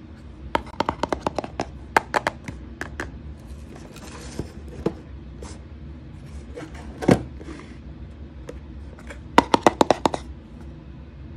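Fingernails tapping quickly on a cardboard product box in short runs of crisp clicks, with a brief scrape across the box and one duller knock on it partway through.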